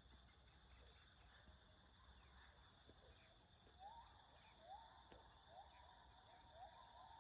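Faint open-air wildlife ambience: a steady high insect drone, joined about four seconds in by a quick run of short rising bird calls, about two a second.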